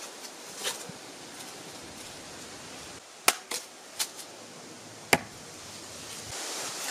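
Five separate sharp knocks over a low steady background hiss, the loudest a little after three seconds in and again about five seconds in.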